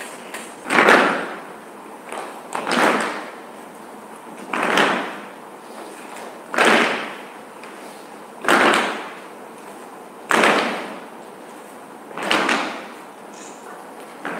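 Slam-like hits repeating evenly about every two seconds, seven in all, each starting sharply and dying away in about half a second.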